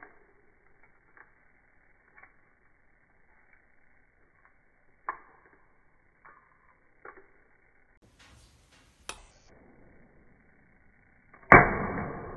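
Eggshells being handled and broken over a china bowl, heard as scattered faint clicks and taps with one sharper tick about five seconds in. About a second before the end comes a sudden loud crack as an egg is struck with a metal spoon, which then dies away.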